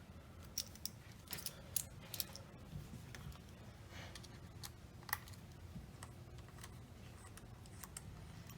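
Scattered light clicks and taps, irregular and a few a second at most, from small repair tools and an iPhone 8 Plus being handled on a work surface. A faint steady low hum lies under them, and the sharpest click comes about five seconds in.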